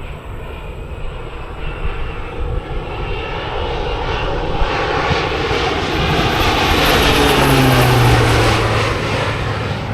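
Crop-dusting airplane's engine and propeller flying past, growing louder to a peak about eight seconds in, its pitch dropping as it passes, then fading a little.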